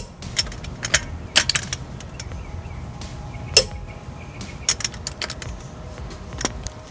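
A click-type torque wrench and its socket on a car's wheel lug nuts: several sharp metallic clicks and clinks spread over the seconds, the loudest about three and a half seconds in. The wrench's click is the sign that the set torque of 80 foot-pounds has been reached on a lug nut.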